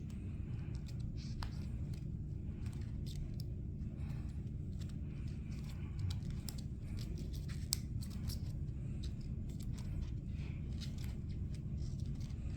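Small sharp clicks and light scraping from the parts of a HARTING M23 circular connector (its insert and contacts) being handled and pushed back together. A steady low hum runs underneath.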